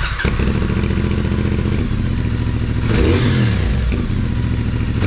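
CFMoto 450 parallel-twin engine fitted with a new aftermarket exhaust. It starts up suddenly, settles into a steady idle, and is blipped once about three seconds in, rising and falling in pitch.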